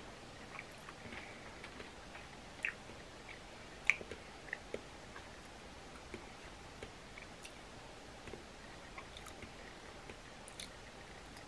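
Quiet eating at a seafood boil: chewing and mouth smacks with scattered small clicks as the seafood is picked apart and peeled by hand, the loudest click about 4 seconds in.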